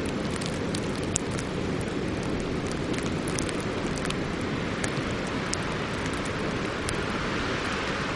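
Ice-storm weather: a steady rumble and hiss of high wind, with many scattered sharp ticks of sleet pellets striking.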